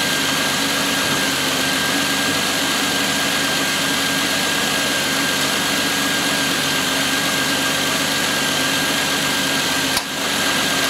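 3.9L V6 of a 2006 Pontiac G6 GTP idling steadily at a raised idle of about 950–990 rpm. The engine is still cold, in its high-idle cold-start mode. A steady hiss and a thin high whine run under the engine sound.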